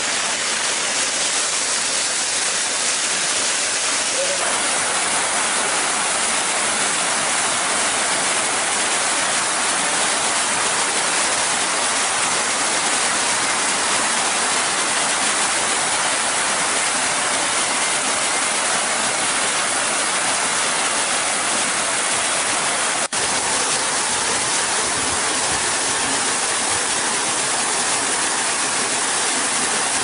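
Waterfall: a steady rush of falling water, with a split-second gap about 23 seconds in.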